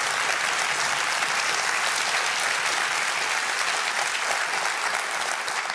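Studio audience applauding, a dense steady clapping that starts to die down near the end.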